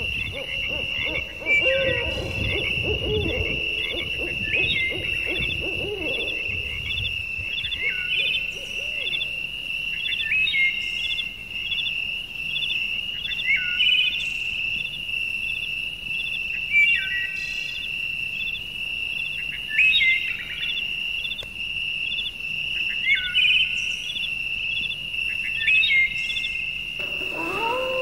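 Nature ambience of animal calls: a steady high trill runs throughout, with a short falling call repeating about every three seconds. Low rumbling fills the first few seconds, and a lower, held call begins near the end.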